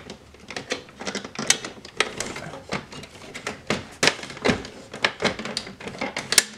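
The plastic disc tray of a Pioneer CLD-D406 LaserDisc player clicking and knocking irregularly as it is worked back onto its guides after sitting crooked.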